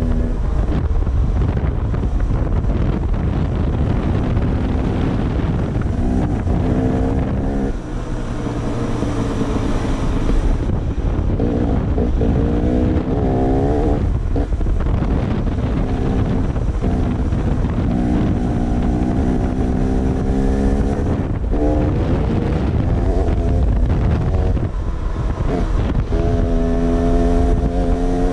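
Dirt bike engine running under way, its pitch climbing and dropping again and again as the throttle is worked, with wind buffeting the microphone.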